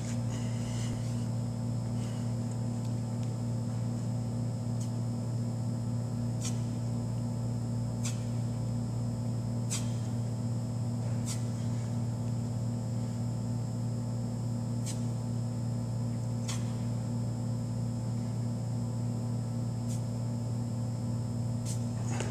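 Steady electrical mains hum, with a few sharp clicks spaced irregularly a second or more apart.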